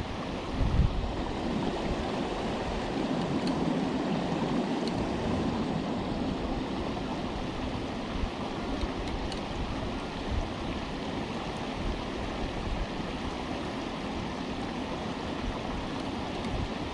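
Steady rush of flowing creek water, with a low bump about a second in.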